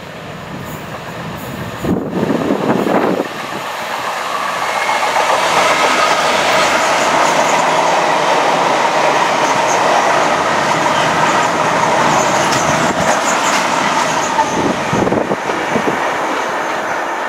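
Freightliner Class 66 diesel locomotive passing close by about two seconds in, its two-stroke diesel engine briefly loudest. A long rake of empty open wagons then rolls past with steady wheel noise and clickety-clack on the rails.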